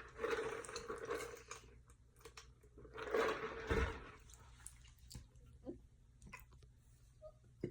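Faint wet mouth and throat sounds, in two short stretches with a few small clicks: swallowing and gulping between burps.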